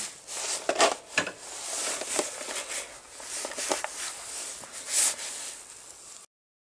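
Workbench handling noises: rustling with a few sharp clicks and taps of small parts, cutting off to silence near the end.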